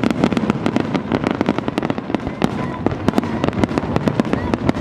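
Aerial fireworks shells bursting in a dense barrage: a rapid, continuous run of sharp bangs, many per second, overlapping one another.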